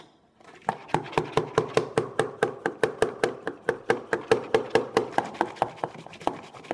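Hand-pumped stainless steel milk frother: the plunger is worked rapidly up and down through hot milk, about four to five strokes a second, each stroke a wet squelching slap as the milk starts to froth.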